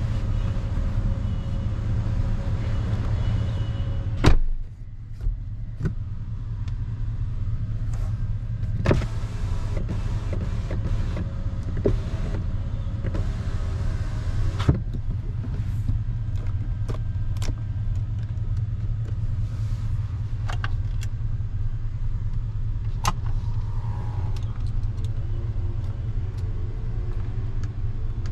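Porsche Panamera Turbo's 4.8-litre V8 running steadily, a low even rumble with no revving. A single loud thump comes about four seconds in, after which the higher background sounds drop away, and scattered light clicks follow.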